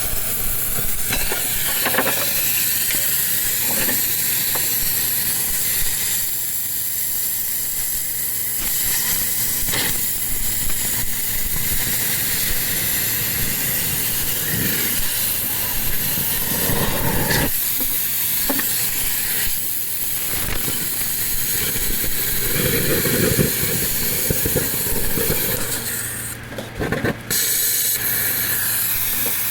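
Steady hissing with a low hum underneath and scattered knocks, typical of scrap-metal workshop noise. The hiss briefly cuts out near the end.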